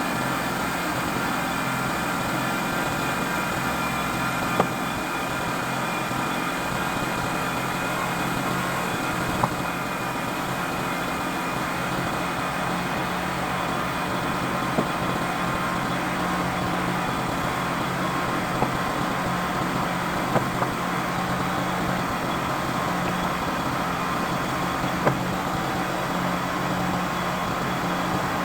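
Sawmill engine running steadily at a constant speed, not cutting, with a handful of short sharp clicks or knocks scattered through.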